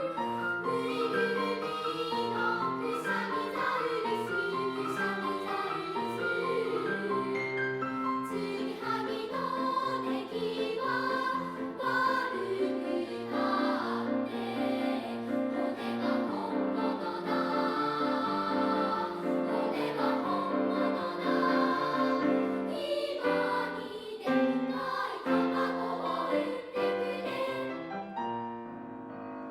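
A children's three-part choir of about 25 primary-school pupils singing with piano accompaniment, several held, overlapping vocal lines moving together. Near the end the singing stops and the piano carries on alone.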